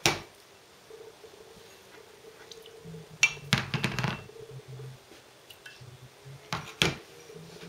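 Ceramic ramekins clinking and knocking as they are lifted, handled and set back down on a tray: a sharp knock at the start, a cluster about three and a half seconds in, and two more near seven seconds.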